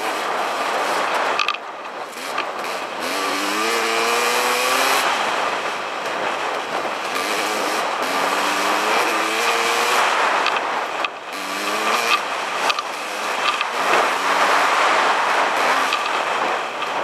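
Dirt bike engine accelerating along a trail, its pitch climbing in several runs as it revs up through the gears, under a loud rushing of wind on the microphone.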